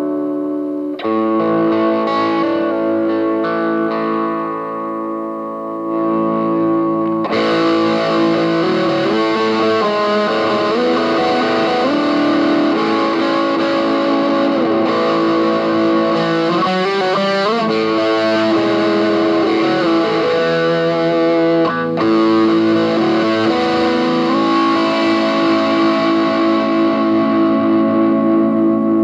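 Fernandes TEJ-70 electric guitar, amplified, playing chords that are left to ring. The sound turns fuller and brighter about seven seconds in, with string bends near the middle.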